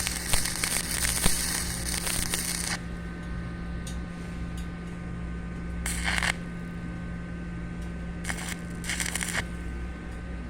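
Electric arc welding crackling and sizzling on steel, cutting off about three seconds in. A steady hum goes on underneath, and three brief bursts of arc crackle come later.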